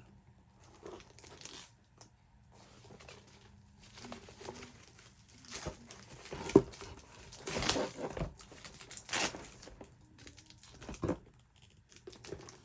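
Packaging wrap crinkling and rustling as it is handled and pulled apart, in irregular bursts, loudest from about six to nine seconds in.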